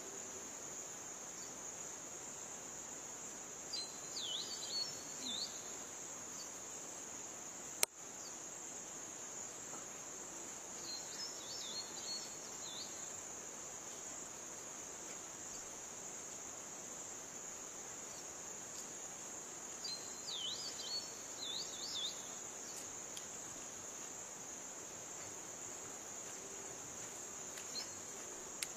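Steady, high drone of insects over open grassland. A bird gives a short run of gliding chirps three times. There is one sharp click about eight seconds in.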